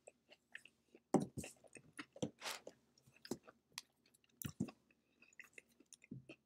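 A person chewing a mouthful of food close to the microphone, a run of irregular short, sharp chewing sounds.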